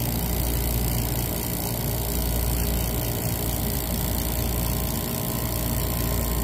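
Refrigeration vacuum pump motor running with a steady, even hum as it pulls a vacuum on an air conditioner's refrigerant lines after a leak repair.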